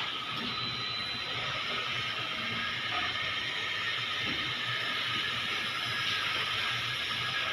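Flat belt conveyor running: a steady mechanical hiss and rumble at an even level.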